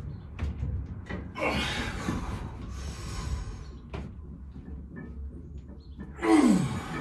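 A lifter breathes hard through a set of barbell incline bench press reps: two forceful exhales, then near the end a louder exhale with a falling grunt. A few light clicks are heard between them.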